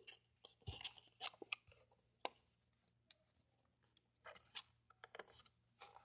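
Faint rustling and crinkling of a sheet of origami paper being folded and creased by hand, in a few short bursts with pauses between.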